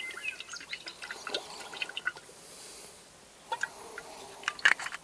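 Olive oil poured from a bottle into a hot stainless steel gastronorm pan, dripping and pattering with many small ticks. The pour tails off about halfway through, and a few sharper clicks follow near the end.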